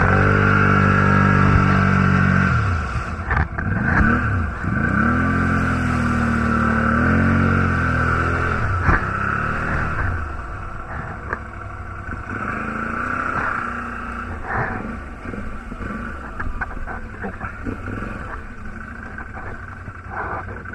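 Quad bike (ATV) engine revving hard under load in mud, easing off briefly and revving up again, then running at lower throttle after about ten seconds. A few sharp knocks come through along the way.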